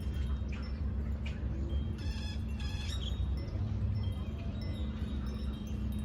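Birds calling: short thin high whistled notes scattered throughout, and two short calls with stacked notes a little after two seconds in. A steady low rumble runs underneath.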